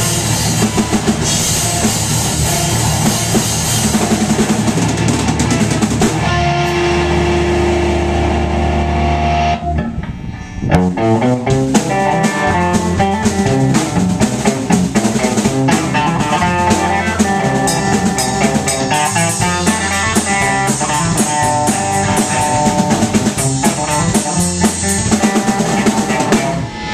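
A small band jamming live on electric guitar, bass guitar and drum kit, each guitar played through a small amp. The playing breaks off briefly about ten seconds in, then starts up again.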